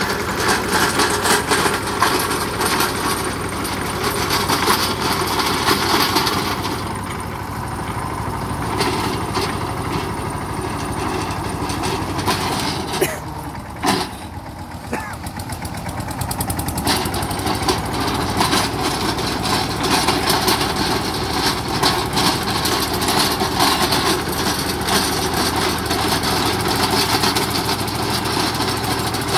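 16 hp mini tractor engine running under load as it drives a 4-foot, 24-blade rotavator through dry soil, the blades churning the ground in a dense, fast rattle. The sound dips briefly about halfway through, with a couple of sharp knocks.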